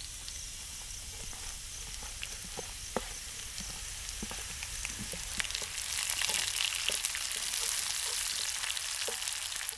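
Hot oil sizzling in a cast-iron pan as fried onions are tipped into it with minced garlic. The sizzle grows louder a little past halfway, with scattered light clicks and scrapes of a wooden spatula against the pan.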